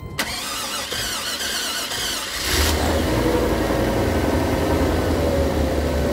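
Car engine cranking on the starter for about two seconds, then catching about two and a half seconds in and settling into a steady idle. This is its first start after a head gasket replacement, and it starts right up.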